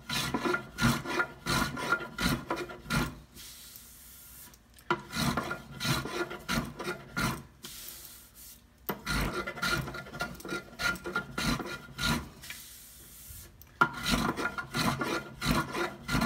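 Small hand plane shaving wood off the bottom of a carved wooden boat hull model in quick, short strokes of about three a second. The strokes come in four bouts of a few seconds each, with short pauses between them.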